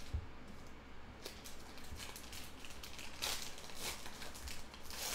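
Wrapper of a Panini Chronicles basketball card pack being crinkled and torn open by hand: a run of quick crackling rustles, loudest a little over three seconds in.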